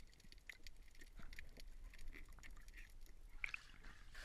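Faint, scattered small clicks and short watery plinks of moving water in a cave.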